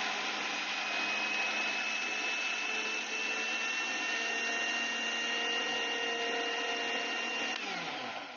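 Electric blender motor running steadily, grinding cooked peanuts with a little water into a paste. Near the end the motor is switched off and its pitch falls as it spins down.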